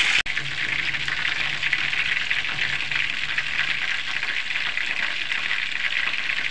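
Battered chicken pieces deep-frying in hot oil in a frying pan: a steady, dense sizzle and crackle of popping oil. The sound cuts out for an instant about a quarter of a second in.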